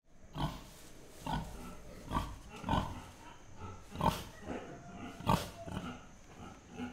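Animatronic dinosaur growling through its speaker: a string of short, deep growls and grunts about a second apart.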